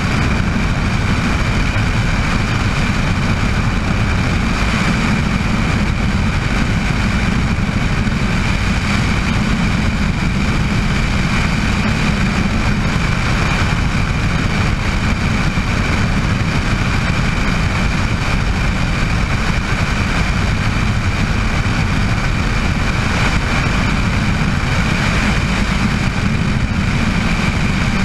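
Bell 206 JetRanger helicopter running steadily: a constant low rotor and engine rumble with a steady high turbine whine over it.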